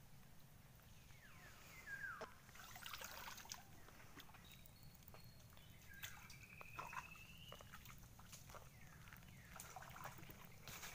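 Faint trickling and sloshing of shallow creek water among mangrove roots and mud, with scattered small clicks and a few faint chirps that slide in pitch.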